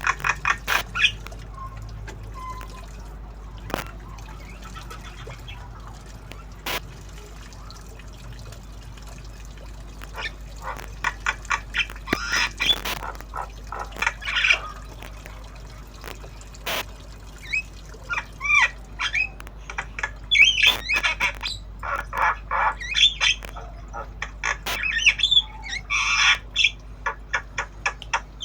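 Young Javan myna (jalak kebo) calling with short squawks and chirps that bend in pitch, in scattered bursts that come more often in the second half.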